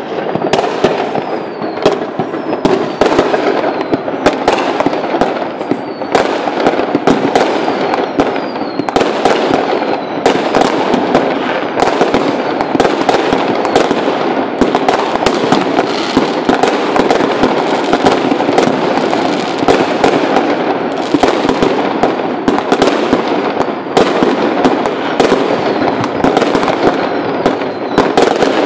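Many fireworks going off at once: a dense, continuous crackle of bangs and shell bursts over a steady rumble, with a whistle falling in pitch now and then.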